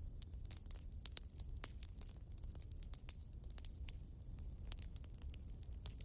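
Wood logs burning in a fireplace, crackling with frequent sharp pops over a low steady rumble of the flames.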